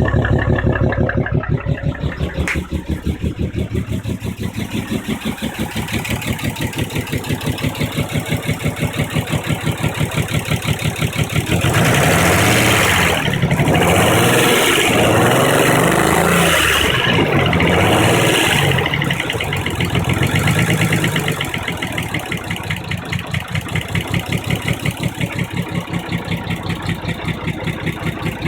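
Nissan 300ZX's V6 engine running on its first start after standing for years, idling with an uneven pulsing beat and revved up and down several times in the middle. The owner thinks it is running on only five cylinders, a misfire.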